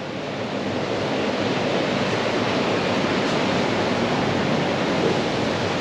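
Steady downpour of rain, an even hiss that keeps on without a break.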